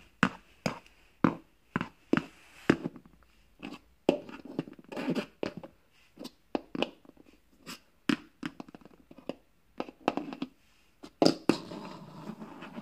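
Plastic toy horse figures tapped and set down on a wooden floor as they are moved along by hand: irregular hard taps, one or two a second, with short stretches of scraping and handling noise.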